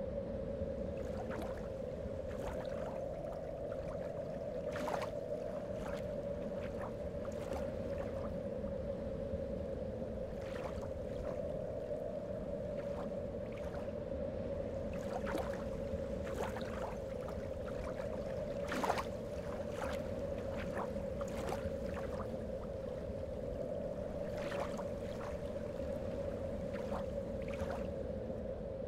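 Ambient soundtrack drone: a steady tone held on one pitch over a low rumble, with scattered irregular clicks and crackles, one sharper click about nineteen seconds in.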